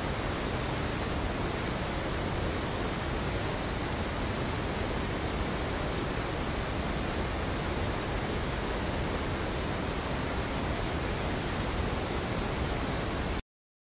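Steady rushing noise of the Kaveri river in flood, churning through white-water rapids over rocks; it cuts off suddenly near the end.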